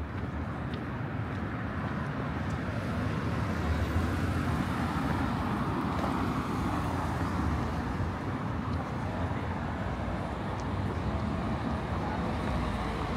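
Motor traffic going past: a steady rumble of car engines and tyres that swells a little about four seconds in.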